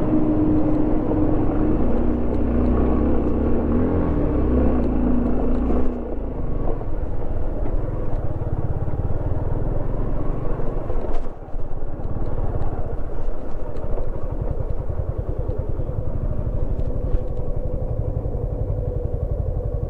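Suzuki V-Strom motorcycle engine running at low revs as the bike picks its way over a rough, stony road; the level eases slightly about six seconds in and dips briefly near the middle.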